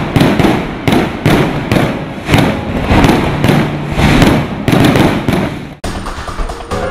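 Aerial fireworks going off in rapid succession, a dense string of sharp bangs and crackles at about two to three a second. About six seconds in it cuts abruptly to electronic music.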